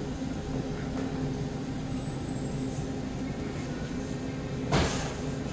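Steady electrical hum of supermarket refrigeration from an open meat case, with a short burst of noise near the end.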